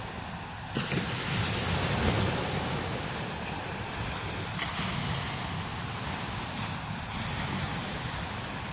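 Strong desert wind gusting steadily over the dunes, a hiss of rushing air over a low rumble of wind buffeting the microphone. A gust swells in sharply about a second in.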